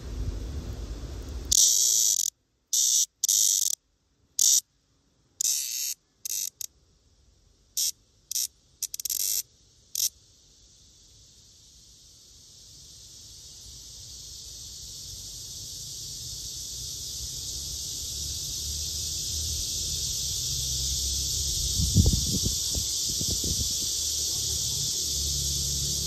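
Male Cryptotympana atrata cicada calling while held in the hand: a string of short high buzzes broken by silences, then a long high buzz that swells slowly and holds steady. A brief low knock of handling comes near the end.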